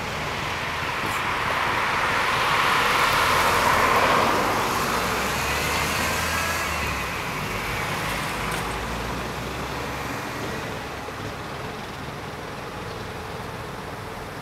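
A road vehicle going by: a rush of noise with a low hum that swells to its loudest about four seconds in, then fades away over the next several seconds.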